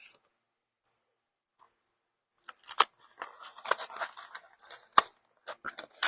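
Dead silence for about two seconds, then packaging being handled: crinkling and tearing with a few sharp clicks.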